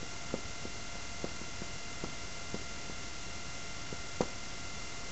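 Whiteboard marker writing on a whiteboard: a handful of small, irregular taps as the pen strokes hit the board, over a steady electrical hum.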